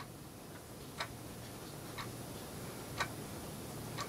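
Clock ticking steadily, one tick a second, over a faint low hum.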